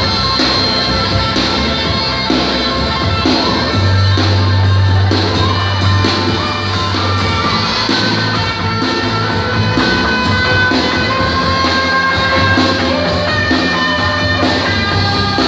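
Live band playing electric guitars, bass and a drum kit with a steady beat, in a large hall.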